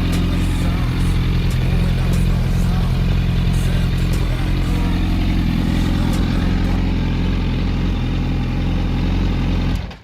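Yamaha R1 sport bike's inline-four engine running steadily at about idle, cutting off suddenly near the end.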